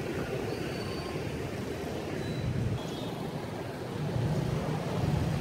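Busy street traffic, mostly motorbikes, heard while riding along the road: a steady engine and road rumble that grows louder about four seconds in.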